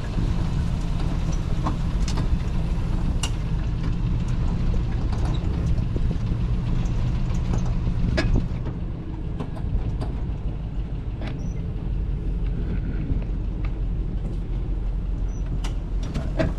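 A motor vehicle's engine running steadily, with scattered knocks and rattles over it. It eases off slightly about halfway through.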